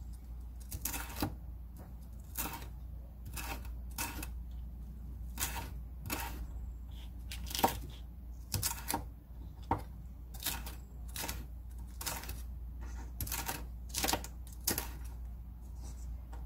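Chef's knife slicing green chili peppers into long strips on a wooden cutting board: sharp, irregular knocks of the blade on the board, about one or two a second.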